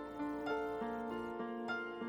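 Soft instrumental background music: gentle plucked and keyboard-like notes in a slow, calm melody.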